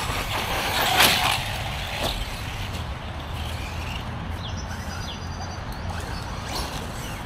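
Team Magic E5HX 4S electric RC truck driving on a dirt track some distance away: a faint electric motor whine and tyre noise under a steady low rumble, with a knock about a second in and a lighter one about two seconds in.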